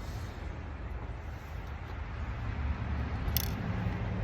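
Low, steady outdoor background rumble with a single light click about three seconds in.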